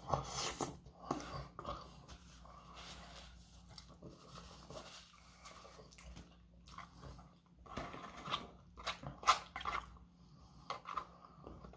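Chewing and biting a mouthful of McDonald's fries, with irregular wet mouth clicks. About eight seconds in come sharper clicks as a plastic fork digs into a paperboard carton.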